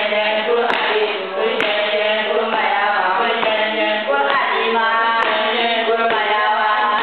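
Children singing a game song together in Dagbani, a steady group chant, with a few sharp taps cutting through.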